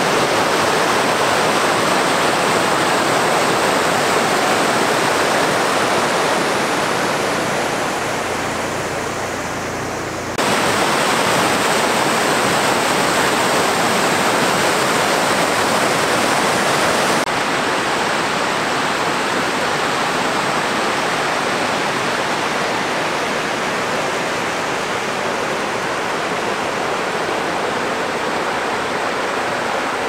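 The Argen river rushing steadily over rock cascades and small waterfalls. The sound changes suddenly in loudness about ten seconds in and again about seventeen seconds in.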